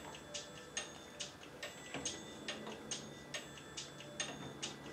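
Faint, steady ticking, about two and a half ticks a second, each tick with a slight metallic ring, over a faint low hum.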